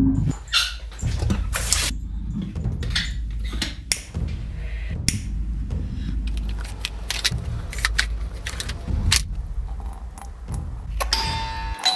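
Kitchen handling sounds: a string of clicks, knocks and scrapes as a stove knob is turned and a moka pot is handled, then coffee poured into mugs near the end, over a steady low hum.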